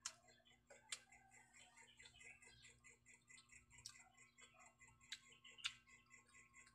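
Mouth sounds of chewing a hand-fed mouthful of rice and fried omelette: soft wet smacks and crackly ticks, with about five sharper lip-smacking clicks.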